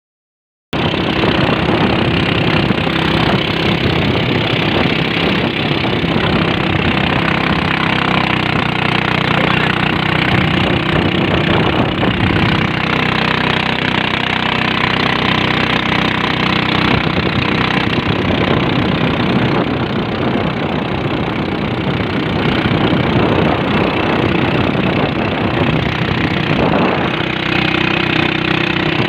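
A boat engine running steadily at constant speed, starting abruptly just under a second in.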